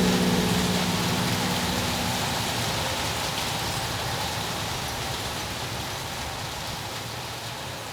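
Steady rain hiss closing out a song, slowly fading out; the last held notes of the music die away in the first two or three seconds.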